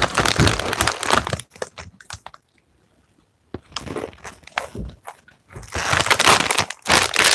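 Plastic snack bag of plantain chips crinkling as it is handled and rummaged in, in bursts with a gap of about a second of quiet in the middle.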